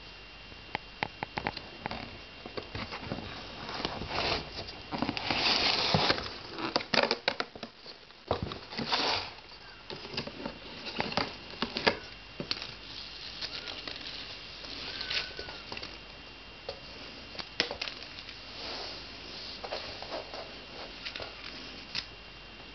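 Cardboard and plastic of a cat-treat advent calendar rustling and crinkling, with irregular clicks and taps, as cats dig at it. The busiest, loudest crinkling comes about four to six seconds in and again about nine seconds in.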